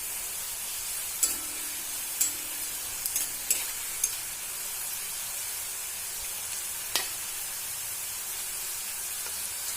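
Thin slices of bitter gourd sizzling steadily as they fry in coconut oil, starting to brown, with a few sharp clicks of stirring against the pan, several in the first four seconds and one about seven seconds in.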